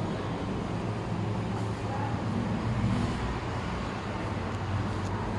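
A steady low hum over even background noise, with no distinct event.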